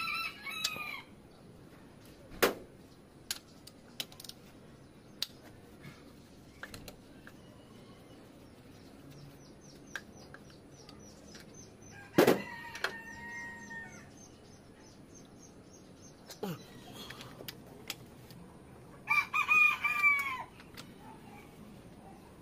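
A rooster crowing three times: once at the start, once about 12 seconds in and once about 19 seconds in. Between the crows come scattered sharp metallic clicks and knocks from hand work on the engine's valve gear.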